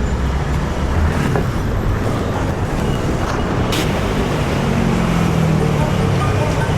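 Road traffic noise: a steady low rumble of vehicles, with one engine note rising in pitch about five seconds in and a short click a little before.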